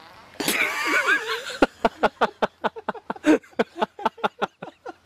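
Laughter: a high, wavering cry, then a long run of quick laughing bursts at about five a second.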